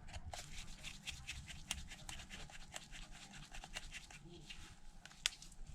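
Faint, irregular ticks and scratches of a precision pentalobe screwdriver turning out the small pentalobe screws at the bottom edge of an iPhone 6s Plus.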